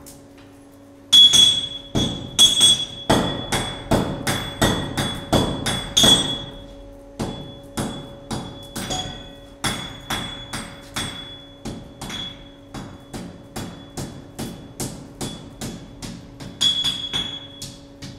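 Hand hammer striking red-hot iron on an anvil, each blow a sharp clang, many with a bright ring. The blows start about a second in, quick and heavy for the first several seconds, then settle into a steady rhythm of about two lighter blows a second, with a few harder ringing strikes near the end.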